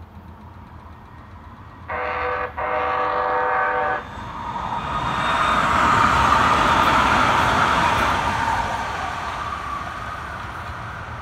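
Metro Gold Line light rail train sounding its horn twice about two seconds in, a short blast then a longer one, then running past with wheel and track noise that swells and fades.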